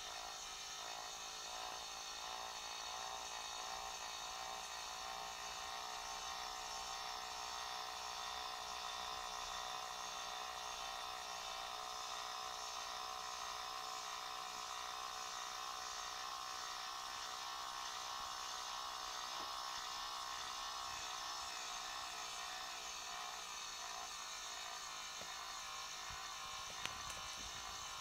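Small electric motor of a rotating display turntable running with a steady whining hum. A single short tick near the end.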